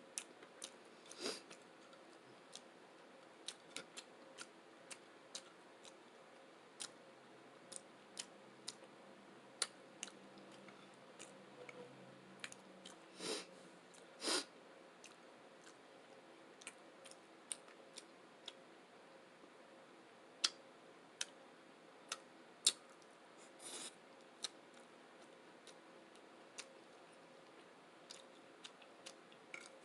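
Close-up eating sounds: quiet chewing with many sharp, irregularly spaced wet mouth clicks and lip smacks, and a few longer squishy smacks, two of them about a second apart near the middle.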